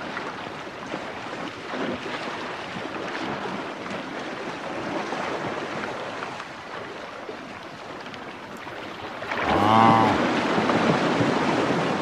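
Water splashing and churning as a herd of African buffalo wades and swims through a pool. About nine and a half seconds in, an animal gives one short bawl, and the splashing grows louder.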